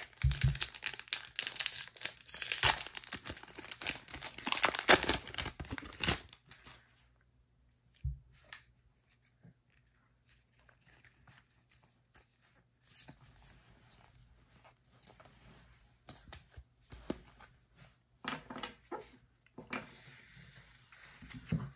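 Shiny wrapper of a 2023 Score football card pack tearing open and crinkling for about six seconds. After that, softer scattered rustles and slides as the stack of trading cards is handled and flipped through.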